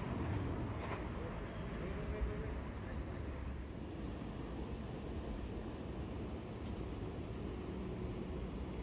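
Insects chirping steadily over a low background rumble.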